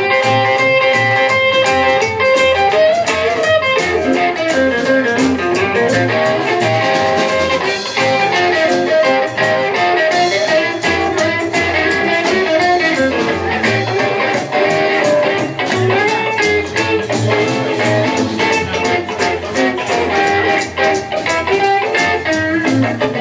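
Live band playing an instrumental passage, led by hollow-body electric guitar over walking upright bass and drum kit.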